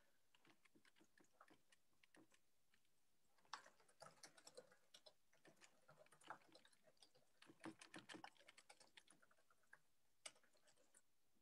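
Faint typing on a computer keyboard: irregular key clicks that start about three and a half seconds in and stop just after ten seconds.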